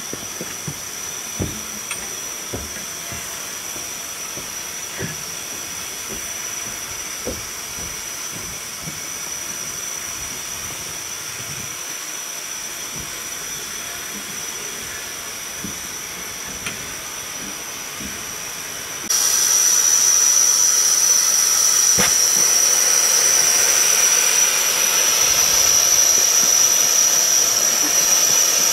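Steam hissing steadily from the standing Royal Scot, an LMS 4-6-0 express steam locomotive, with a high whistling tone through the hiss; about two-thirds of the way in the hiss jumps suddenly louder. A few light knocks sound in the first part.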